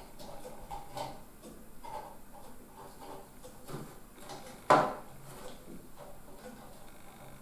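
Plastic connectors and cables being handled inside a metal PC chassis as a Molex power plug is pushed onto an IDE flash module. Small clicks and rattles, with one sharp knock nearly five seconds in.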